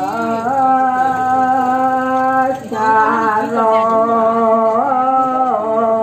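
Slow ceremonial chant sung by one voice, holding long steady notes and gliding to a new pitch every couple of seconds.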